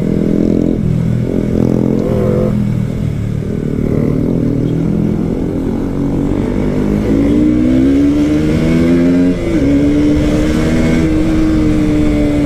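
KTM RC 200's single-cylinder engine under way, heard from the rider's seat. It pulls steadily, then rises in pitch as the bike accelerates, dips briefly on an upshift about nine seconds in, and holds a higher steady note after.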